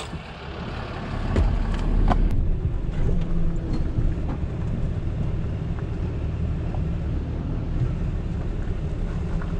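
Tow truck engine running steadily, a low rumble heard from inside the cab, with a few knocks in the first couple of seconds.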